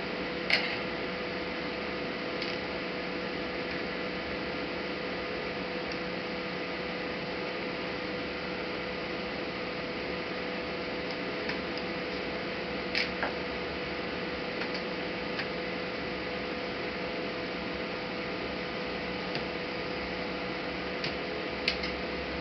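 Steady electrical hum and hiss, broken by a few short, sharp clicks: one about half a second in, a pair about two-thirds of the way through, and one near the end.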